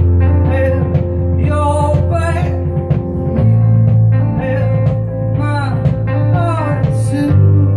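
Small rock band playing live: acoustic guitar, electric guitar, electric bass and a Nord keyboard, over held bass notes that change every few seconds, with a man singing lines into the microphone twice.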